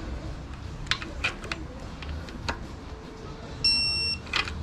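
Digital torque wrench tightening a bolt: a few sharp clicks, then one steady half-second beep about three and a half seconds in as it reaches its set torque of 15 foot-pounds.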